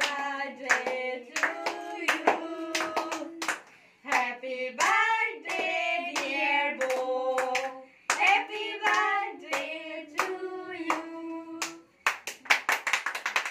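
Several voices sing a birthday song while hands clap along. About twelve seconds in, the singing ends and quick, steady clapping carries on alone.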